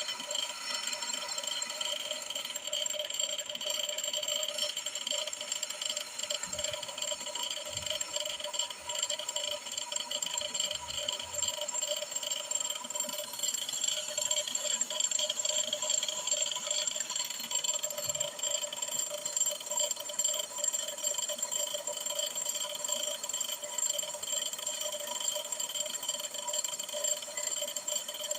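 Brake lathe turning a Hyundai Getz brake drum, the cutting tool resurfacing the drum's braking surface. The machine runs steadily, with several held whining tones over a noisy hiss.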